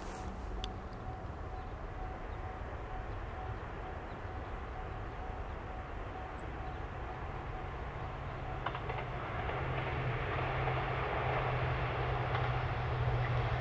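A three-car diesel railcar train (Tosa Kuroshio 9640 and JR Shikoku 1000 series units) approaching on the track. Its engine drone and running rumble grow steadily louder over the second half as it nears.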